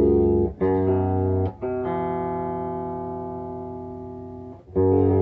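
Electric guitar through a clean tone on a Boss GT-1, strings plucked and left to ring while being tuned up: a few short strikes, then one long note slowly dying away before another is struck near the end.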